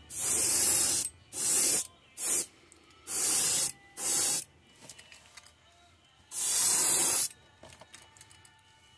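Airbrush spraying paint in six short bursts of hiss, each half a second to a second long, with a longer pause from about four and a half to six seconds in.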